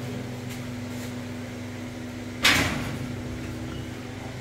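A steady low electrical hum, with one sudden, short, loud noise about halfway through that fades within half a second.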